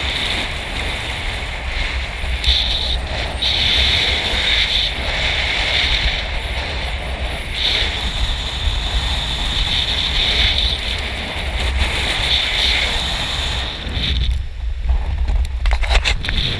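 Strong wind buffeting the microphone in a steady low rumble, with ocean surf breaking on rocks below in a continuous hiss; the wind eases briefly near the end.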